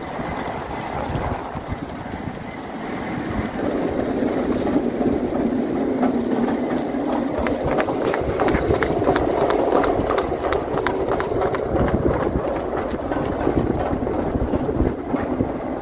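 A machine running with a steady drone that swells about three and a half seconds in, overlaid with dense, irregular metallic clicking and rattling.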